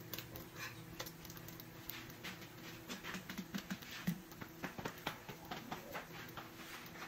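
Turkey bacon frying on a Presto electric griddle, crackling and popping irregularly as the strips are turned by hand.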